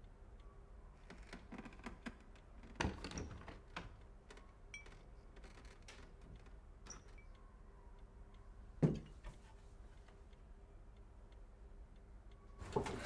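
A clock ticks faintly while a low wooden cupboard is opened and rummaged in, with a few knocks and light glass sounds. Just before nine seconds in, a glass bottle is set down on a table with a single sharp knock.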